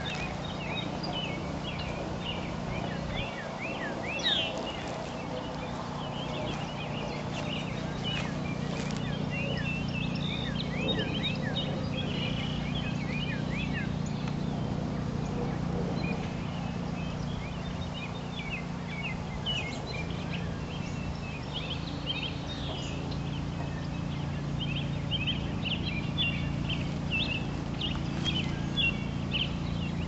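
Many small birds calling at once, a dense chatter of short high chirps and quick down-slurred notes that thins out around the middle and picks up again near the end. A steady low machinery hum runs underneath.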